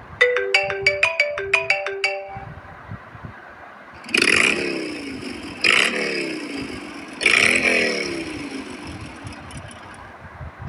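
iPhone classic ringtones playing. First comes a quick run of about a dozen short plucked notes lasting about two seconds. After a short pause, three sweeping whooshes follow about a second and a half apart, each falling in pitch and fading away.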